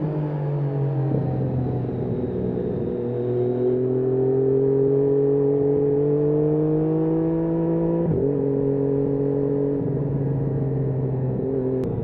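Triumph Daytona 675's inline three-cylinder engine running under way. The engine note climbs gently for a few seconds, then breaks and dips about eight seconds in, and again near the end.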